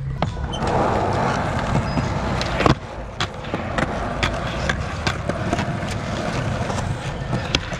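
Skateboard wheels rolling over rough concrete with a steady grind, broken by several sharp clacks of the board as it is popped and lands. The loudest clack comes a little under three seconds in.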